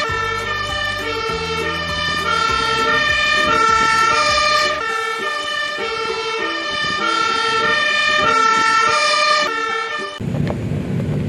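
Fire engine two-tone siren alternating between a high and a low note, with the truck's engine rumbling under it for the first five seconds. The siren cuts off about ten seconds in.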